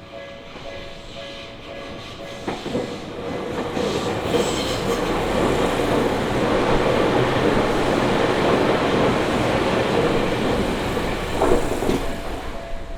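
A Tokyu Oimachi Line commuter train passing over the level crossing. Its rumble and wheel noise build from about two seconds in, stay loud through the middle and fade near the end, with a few sharp wheel knocks near the start and end of the pass. The crossing's warning bell rings under it at the beginning and again as the train clears.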